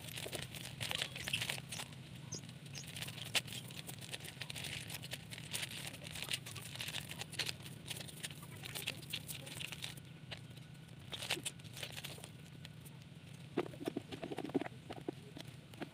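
Nylon fishing net rustling and crackling as it is shaken and drawn through the hands, with irregular clicks of snail shells knocking together as they are picked out of the mesh; a denser clatter of shells near the end.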